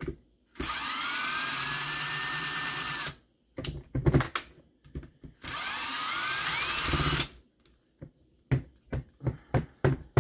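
Power drill backing screws out of a roto starter's plastic case: the motor runs twice, each time spinning up with a rising whine and running steadily for about two seconds. Short clicks and knocks of handling come in between and afterwards.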